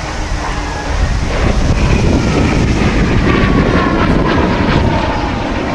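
Jet noise from a Eurofighter Typhoon FGR4's twin Eurojet EJ200 turbofans as it flies overhead, growing louder about a second in. A whine in it falls slowly in pitch in the second half.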